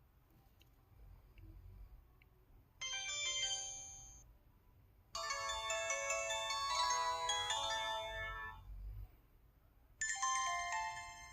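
Three electronic missed-call alert tones from an LG KU6300 mobile phone, one after another: a short chime about three seconds in, a longer melodic chime from about five to nine seconds, and a third starting near the end.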